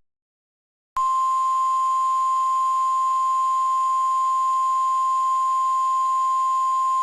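NOAA Weather Radio 1050 Hz warning alarm tone. It is one steady, unwavering beep that starts about a second in, after a moment of silence. It is the alert signal that announces a warning broadcast, here a tornado warning.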